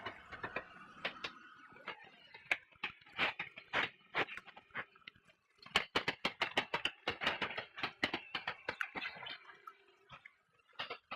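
Ultrasound detector output: a dense, irregular run of sharp clicks and crackles with faint wavering tones underneath, busiest a little past the middle. These are high or very soft sounds made audible by the detector.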